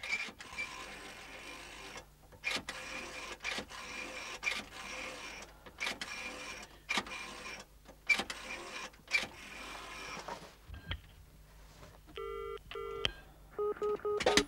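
A rotary telephone dial being turned and whirring back for digit after digit, with clicks between digits. About 12 seconds in, a double-burst British ringing tone ('brr-brr') comes through the handset, followed near the end by a steady tone from the line.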